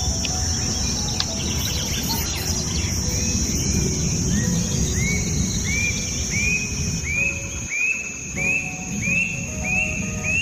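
Nature ambience: a steady high insect drone over low rumbling noise. From about three seconds in, a short rising chirp repeats roughly every half second or so.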